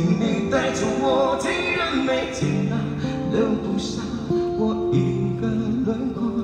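A male singer performing a slow ballad to his own acoustic guitar accompaniment.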